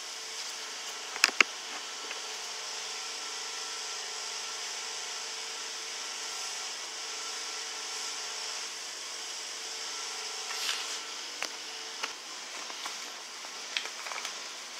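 A steady workshop hum, like a fan running, with light clicks and taps as steel engine bearing shells are handled and set into the aluminium block: a double click about a second in and a few more near the end.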